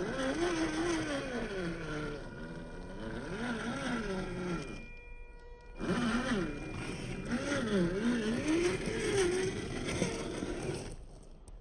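1:10-scale Reely Free Men RC rock crawler's electric motor and geared drivetrain whining as it crawls, the pitch rising and falling with the throttle. The whine stops for about a second midway, then picks up again and fades near the end.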